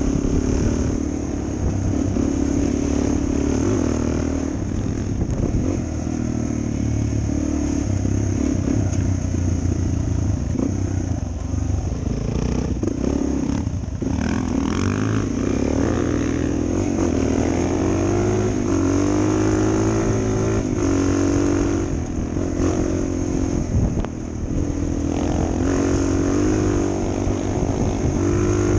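Suzuki DR 400 single-cylinder four-stroke dual-sport motorcycle engine under way, its pitch climbing and dropping again and again as the throttle is opened and closed.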